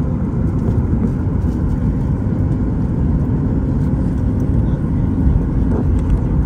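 Inside the cabin of a Boeing 737 MAX 8-200 taxiing: the CFM LEAP-1B engines at idle and the roll over the taxiway make a steady low rumble.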